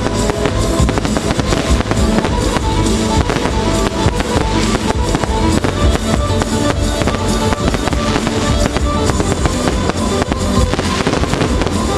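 Aerial fireworks bursting and crackling in quick succession over loud music with drums, a fireworks display set to music.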